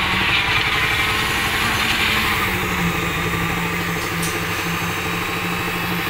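Engine of concrete-pouring machinery running steadily, with a fast, even low pulse and a constant hum.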